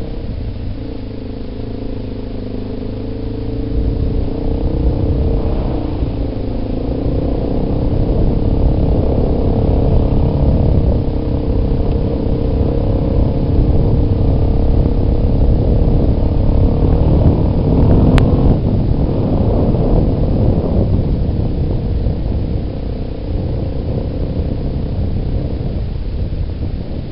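Yamaha Big Bear ATV's single-cylinder four-stroke engine running as the quad rides along a dirt trail, with rumble from the ride. The engine picks up about four seconds in and stays harder on the throttle through the middle. One sharp click about eighteen seconds in.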